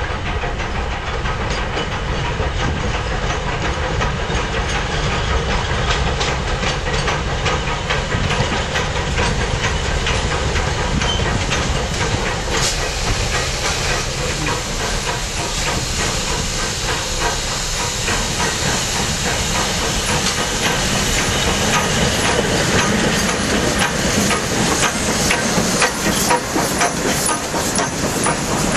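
Steam locomotive 1072 hissing steam as it comes out of the tunnel and passes close by, then its passenger carriages run past with wheels clicking over the rail joints, the sound growing louder in the second half.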